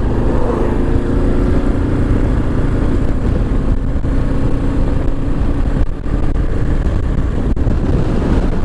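Kawasaki KLR 650's single-cylinder engine running steadily while the motorcycle is ridden, with a short dip in level about six seconds in.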